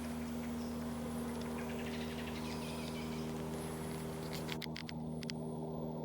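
A steady low hum made of several even tones, with faint high chirps over it and a few sharp clicks about five seconds in.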